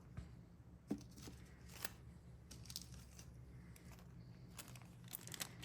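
Faint, scattered small clicks and ticks of a Ford door lock cylinder and its small metal parts, tumblers and springs, being handled while the lock is recoded.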